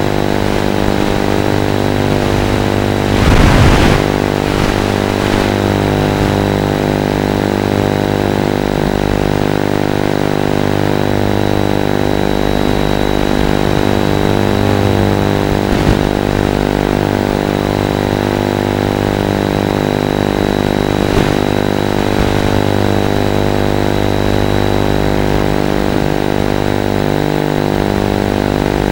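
Steady, loud buzz with many harmonics on the soundtrack of an analog FPV video receiver's DVR recording, typical of the video signal leaking into the audio channel. A short, louder burst of noise about three seconds in, with fainter crackles later.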